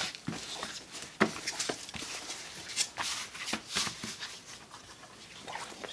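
Sheet of faux leather being unrolled and smoothed flat by hand, with irregular rustling and soft crinkling and tapping of the material.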